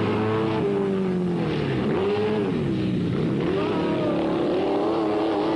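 Speedway sidecar motorcycle engine running hard on a dirt track, its pitch falling and rising again about two seconds in and once more near three seconds as the throttle is eased and reopened.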